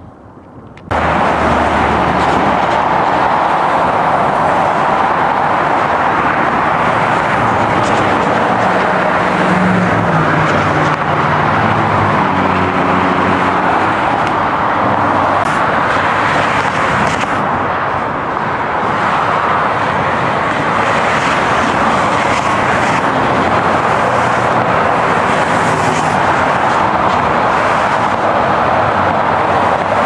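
Steady traffic noise from cars passing on a multi-lane highway, mostly tyre and engine noise, starting abruptly about a second in.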